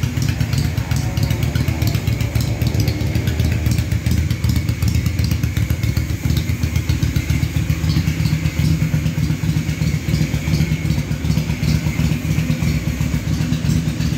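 Yamaha Virago 535's air-cooled V-twin engine running at a steady idle, an even, low, pulsing exhaust note with no revving.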